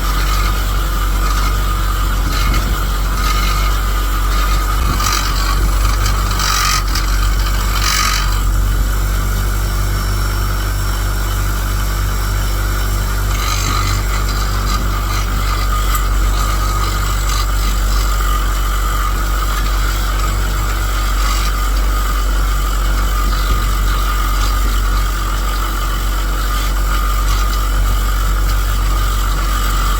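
Grinder-mounted wire wheel running steadily with a constant motor hum, scraping against a metal shell fuze held to it to strip dirt and corrosion. Harsher bursts of scraping come about five to eight seconds in and again around thirteen seconds in.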